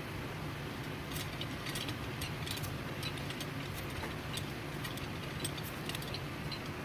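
Many light, scattered clicks and small ticks over a steady low hum, starting about a second in.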